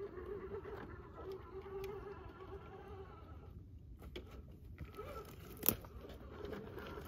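Electric drive motor and gearbox of an RC rock crawler whining steadily as it crawls up a rock face. The whine stops for about a second just past the middle and then resumes. There is one sharp click near the end.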